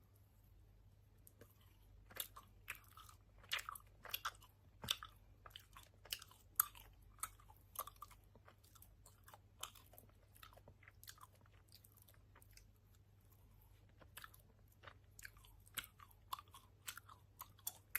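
Close-up chewing and lip-smacking of a chewy sour gummy candy: a run of sharp wet smacks and clicks. It starts about a second and a half in and pauses briefly in the middle.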